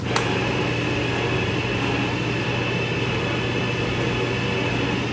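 Belt conveyors of an in-motion checkweigher starting with a click and then running steadily, a motor hum with a high whine, as they carry a cardboard box across the scale.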